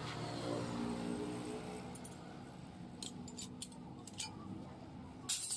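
Light metallic clinks and taps from metal pieces or tools being handled, scattered through the second half with the loudest near the end, over a low steady hum.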